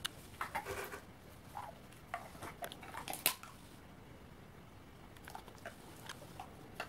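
A dog cracking walnut shells between its teeth and chewing them, with irregular sharp crunches and clicks; the loudest crack comes a little past the middle.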